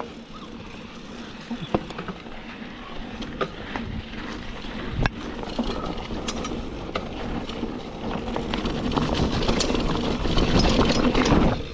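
A mountain bike being ridden down a flight of stairs and onto a dirt trail. The tyres roll and the bike rattles, with scattered sharp knocks as the wheels drop and hit, growing louder toward the end.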